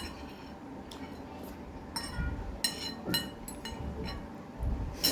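Cutlery clinking against a dish during a meal of noodles and momos: several short ringing clinks, bunched about two to three and a half seconds in and another at the end, with soft handling knocks between.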